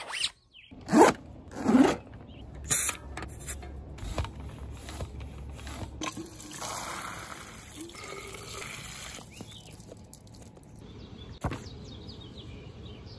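A jacket zipper pulled up in two quick loud strokes, then water from a garden hose running into plastic bike bottles as a steady hiss for a few seconds. A single sharp click comes near the end.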